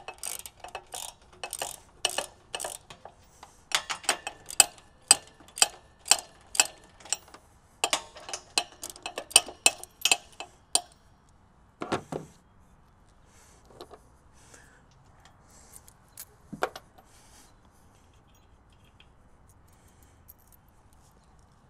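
Ratchet wrench with a 9/16 inch socket clicking rapidly as it backs out the bolts holding a trailer's power tongue jack, in three runs of clicks over the first dozen seconds. A few scattered knocks follow, then it goes quiet.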